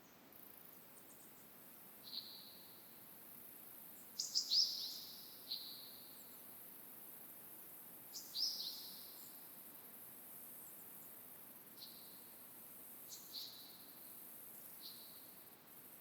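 Wild birds giving short, sharp, downward-sweeping calls in little bursts every few seconds, loudest about four and eight seconds in, over a steady very high hiss of forest ambience.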